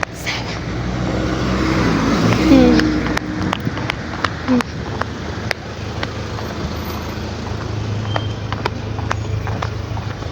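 Street traffic: a motor vehicle's engine grows louder to a peak about two and a half seconds in, then a steady low engine drone carries on. Brief faint voices and scattered light ticks are heard over it.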